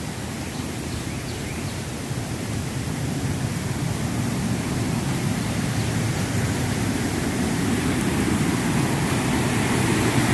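Rushing water of a small waterfall, a steady noise that grows gradually louder.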